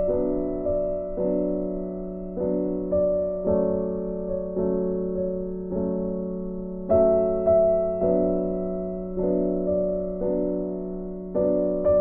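Background piano music: soft chords and notes struck about twice a second, each dying away before the next.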